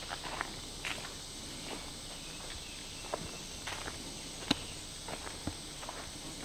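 Footsteps of someone walking on a dirt forest trail: uneven crunching steps, one noticeably louder about four and a half seconds in.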